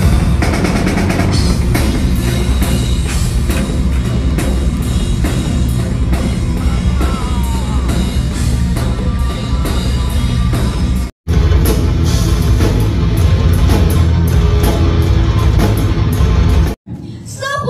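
Live heavy metal band playing loud, with distorted guitar, bass and drum kit. The sound cuts out abruptly about eleven seconds in and again near the end.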